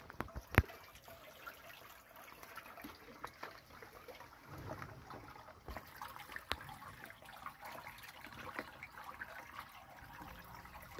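Small stream trickling softly, with scattered faint ticks and drips. A sharp click sounds about half a second in.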